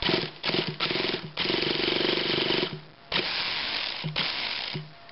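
Shaft starter whirring in about five short bursts as it tries to spin an HPI K5.9 big-block nitro engine, which does not fire. The owner thinks the one-way starter bearing is slipping.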